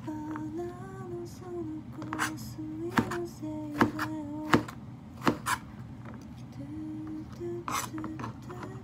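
A woman humming a tune while a kitchen knife slices cucumber on a plastic cutting board, the blade knocking sharply on the board about once a second.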